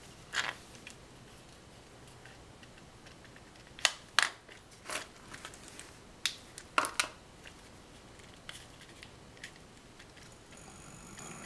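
Scattered clicks and knocks of cables, connectors and a throttle being handled, then near the end a Crystalite X408 brushless hub motor starting to run with a steady electric whine that grows louder.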